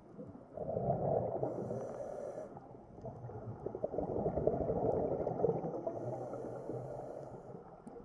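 Scuba diver breathing underwater through a regulator: two long bubbling exhalations, the first starting about half a second in and the second about three seconds in, with a hiss over parts of each.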